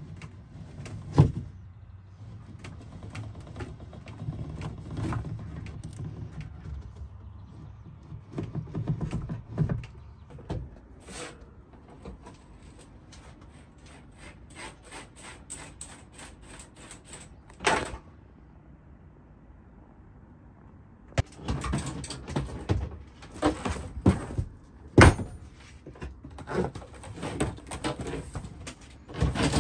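Knocks, taps and clatter of tools and materials being handled, with a sharp knock about a second in and another a little over halfway through, then a busier run of clicks and thumps in the last third.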